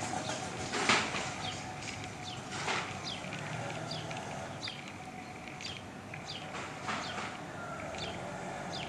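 A bird calling over and over, a short falling chirp repeated about once a second, over a steady background hum. Three short bursts of noise break in, the loudest about a second in.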